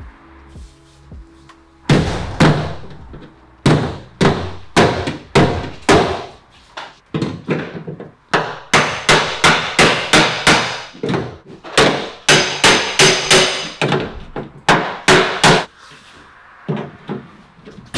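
Hand hammer blows on the crash-dented sheet-metal rear quarter panel of a Porsche 991.2 GT3 RS as it is beaten back out into shape. Sharp strikes come about two or three a second, starting about two seconds in with short pauses, and some strikes leave a ringing.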